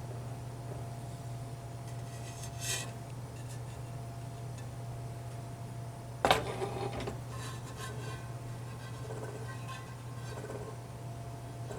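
Small hard clinks and a sharp knock as the Sony PS-LX220 turntable is handled, over a steady low hum. The knock about six seconds in is the loudest, followed by light clinking: a rattle that the owner takes for something loose inside.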